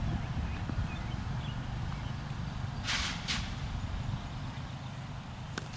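Low, fluctuating rumble of wind buffeting the microphone. Two short hissy bursts come about three seconds in. A single sharp knock near the end is the delivered cricket ball's impact at the batsman's end.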